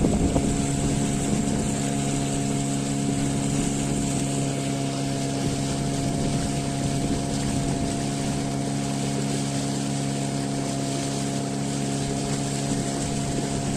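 A small motorboat's engine running at a steady speed: an even drone with a few constant tones over a steady hiss.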